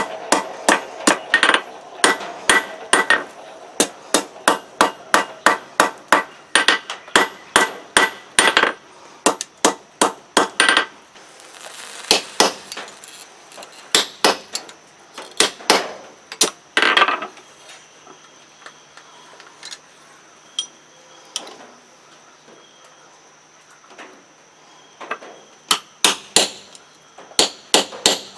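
Hammer blows on steel over an anvil: runs of quick, ringing strikes, about two or three a second, that thin out about halfway through. After a pause, a few more strikes come near the end.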